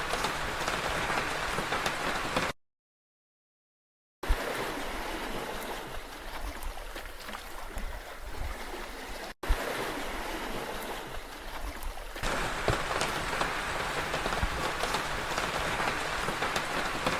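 Steady rush of water, spliced from several clips: it stops dead about two and a half seconds in, comes back after nearly two seconds of silence, drops out for an instant about halfway through, and turns brighter and hissier a few seconds later.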